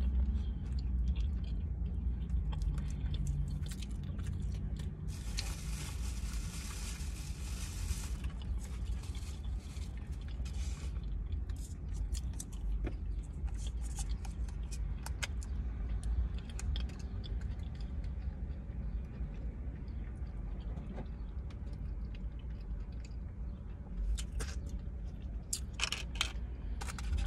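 Close-miked chewing and biting of tacos, with small crunches, lip smacks and scrapes, over a steady low hum. A hiss rises for a few seconds about five seconds in.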